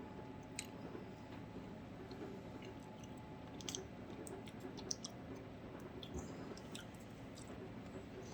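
Faint chewing of a Nature Valley granola bar stuck in cotton candy, with small scattered mouth clicks.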